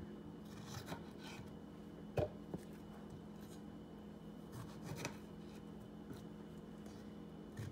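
A kitchen knife slicing strawberries on a cutting board: a few soft taps of the blade on the board, the clearest a little over two seconds in and another about five seconds in, over a faint steady hum.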